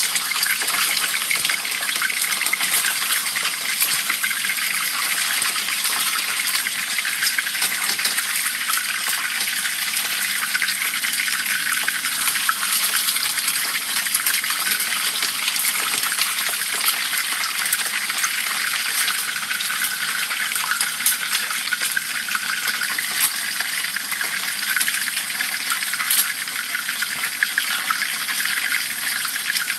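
Dorado fish deep-frying in a pan of hot oil: a steady sizzle with many fine crackles and spits.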